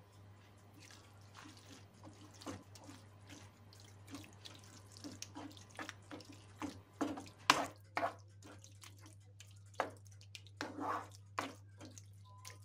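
Wooden spoon stirring sliced onions through a thick tomato and tahini sauce in a nonstick frying pan: irregular wet squelches and scrapes, a few louder strokes in the middle and near the end. A steady low hum runs underneath.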